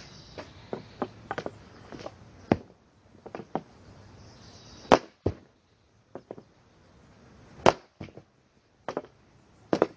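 Hockey shots: sharp cracks of a stick striking pucks, four loud ones a couple of seconds apart, with lighter taps and clicks of puck handling in between.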